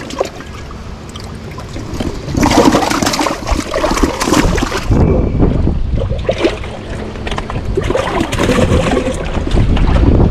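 Water splashing and trickling as fish are handled into a water-filled weigh bag, in two louder stretches, about two seconds in and again from about six seconds in.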